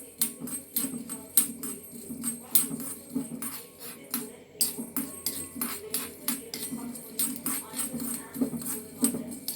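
Black peppercorns being stirred while dry-roasting in a pan: irregular clicks and rattles of the corns and the spoon against the pan, a few a second.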